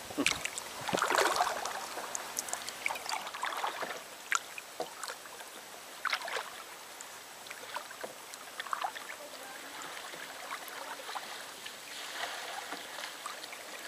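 Kayak paddle strokes on a river: water splashing and dripping off the blade in scattered bursts, with the loudest splashing about a second in.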